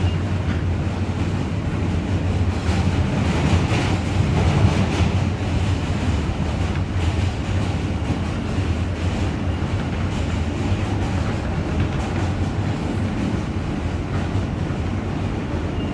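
New York City subway Q train running at speed: a steady, loud rumble of wheels on the rails with faint clacking.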